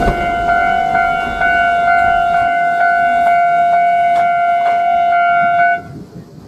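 Japanese railway level-crossing alarm ringing: a steady electronic bell tone struck about twice a second, which cuts off suddenly near the end as the crossing clears.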